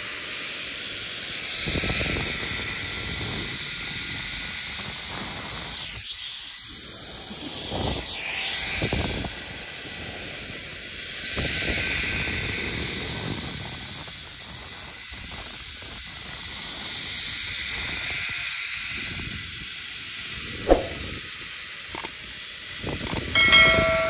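Zip line trolley pulleys running along the steel cable with a steady hiss, with wind gusting on the microphone. Near the end come a couple of sharp knocks and a short squeal as the trolley reaches the braking end of the line.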